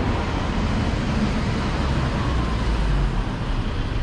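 Road traffic noise: a steady rumble of passing vehicle engines and tyres, heaviest in the low end.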